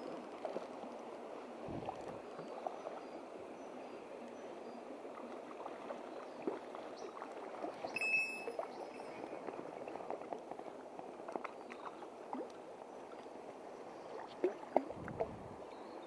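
Stream water running, with small splashes from a hooked rainbow trout thrashing at the surface as it is reeled in. A brief high squeak comes about halfway, and several sharper splashes near the end as the fish is drawn into the shallows.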